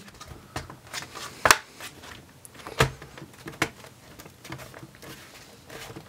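Plastic base panel of an HP 17-x000 laptop snapping onto the chassis as it is pressed down: a few sharp clicks of its clips engaging, the loudest about a second and a half in, with others near three and three and a half seconds in.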